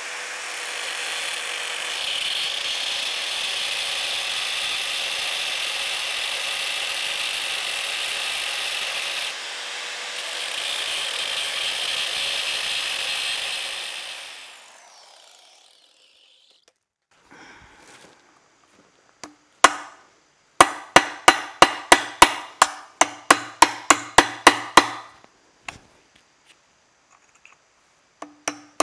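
Angle grinder with a cutoff wheel running steadily as it cuts into the old ball joint on a GM 10-bolt front axle's steering knuckle, winding down about fourteen seconds in. After a pause comes a fast run of ringing hammer blows on a chisel driven into the cut ball joint, about four or five a second, and a few more blows near the end.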